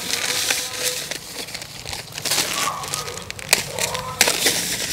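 Salt poured from plastic packets into a large metal basin: a hissing pour that comes in spells, with the plastic packets crinkling and a few sharp clicks.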